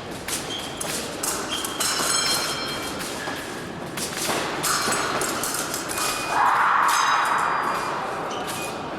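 Épée blades clicking and clashing with footsteps on the fencing strip: many sharp clicks and knocks, some followed by a short high metallic ring. About six and a half seconds in, a louder rushing noise lasts about a second.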